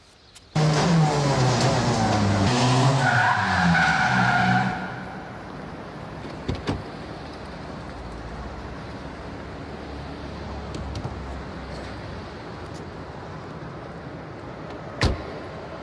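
Ford Fiesta rally car's engine revving hard, rising and falling, with tyres squealing as it slides, for about four seconds. It then settles to a quieter, steady running sound with a few light clicks and one sharp knock near the end.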